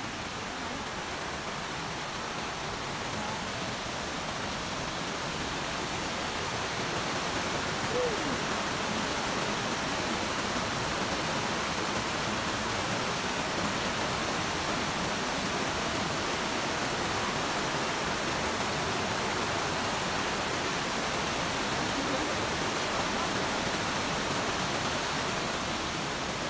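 A small waterfall cascading over rocks in a forest stream, a steady rush of water. It grows louder over the first several seconds and eases slightly near the end.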